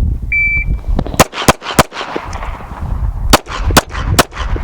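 A shot timer beeps once, then a Smith & Wesson M&P 2.0 pistol fires six shots: three quick shots strong-hand, a pause of about a second and a half while the gun is switched to the other hand, then three more shots support-hand.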